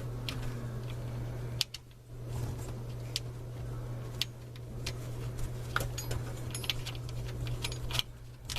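Scattered light metallic clicks and taps of screws and a screwdriver being handled while fastening a garbage disposal's screws, over a steady low hum.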